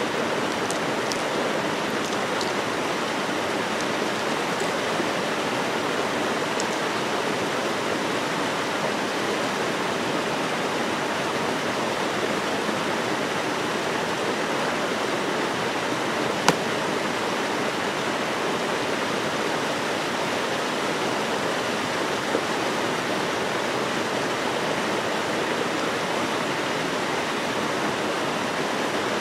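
Steady rush of a mountain stream cascading over rocks into a pool, even and unbroken, with one sharp click about halfway through.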